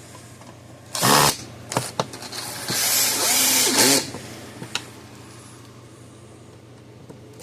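Cordless drill/driver driving screws back into a fence charger's case: a short burst about a second in, a brief one just after, then a longer run of about a second and a half.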